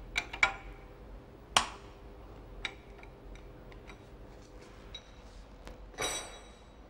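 Metal-on-metal clicks and clinks from a spanner working on a camshaft in an aluminium cylinder head: a few light clicks, one sharp knock with a short ring about a second and a half in, then a ringing clink near the end.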